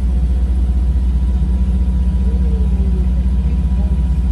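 A boat's engine running steadily, a low, even drone heard from inside the passenger cabin.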